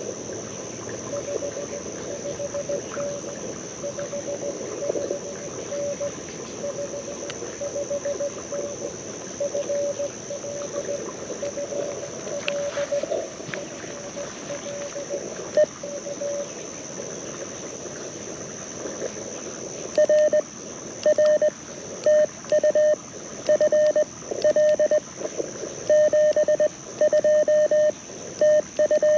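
Morse code tones from an LNR Mountain Topper MTR4B QRP radio played through a small speaker: at first faint received CW keyed in and out among receiver hiss, then, about two-thirds of the way through, the louder, clean sidetone of the operator's own keyed sending. Insects keep up a steady high buzz behind it.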